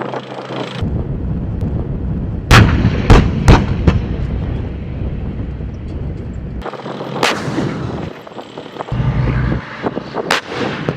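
Military weapons firing in a live-fire exercise: three sharp shots in quick succession about two and a half seconds in, and single shots later, over a steady low vehicle rumble, with abrupt cuts between clips.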